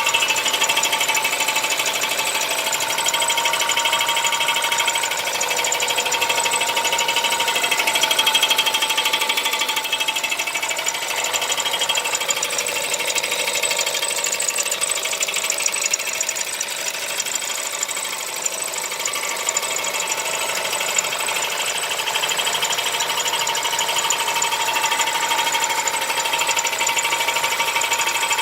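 Audi A4 B8's 1.8 TFSI turbocharged four-cylinder petrol engine running steadily with a rapid, continuous knocking clatter: the engine knock that the owner is recording.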